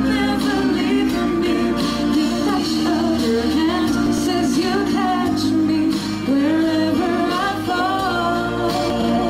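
Girl singing a song into a handheld microphone over instrumental backing music.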